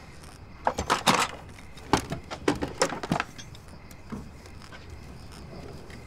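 Metal hand tools clinking and rattling as they are picked out of a toolbox: a quick run of sharp clatters starting about half a second in and lasting some two and a half seconds.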